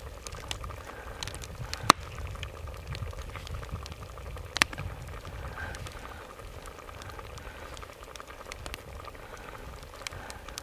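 Hands tearing open a spit-roasted duck stuffed with grouse and bear fat: soft wet squishing and fine crackling of the juicy meat and skin, with two sharper cracks, one about two seconds in and one near the middle, over a low steady rumble.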